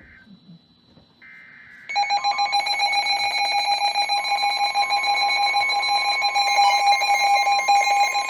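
Emergency alert attention tone: a few faint short electronic bursts, then about two seconds in a loud, harsh, rapidly pulsing alarm tone on fixed pitches starts and holds, the signal that a new weather warning is about to be read.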